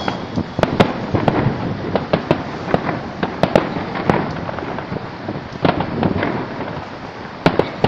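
Fireworks exploding: a dense, irregular string of sharp bangs and pops over a continuous crackling haze.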